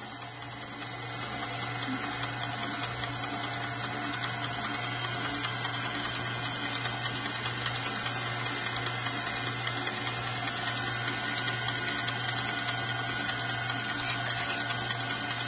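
KitchenAid Classic Plus stand mixer running steadily, very loud, its beater churning thick brownie batter in the stainless steel bowl: an even motor hum with the scrape and slap of the batter.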